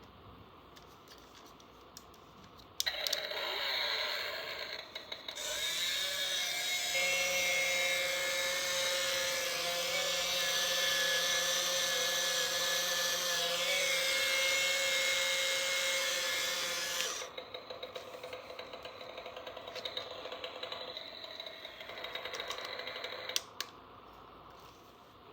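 Toy electric screwdriver's small motor whirring with a steady whine. It starts about three seconds in, runs loudest for about twelve seconds, then runs softer and ends with a sharp click.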